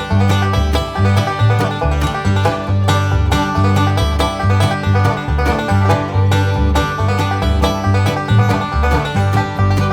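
Background music: upbeat bluegrass-style tune with banjo picking and guitar over a steady bass line.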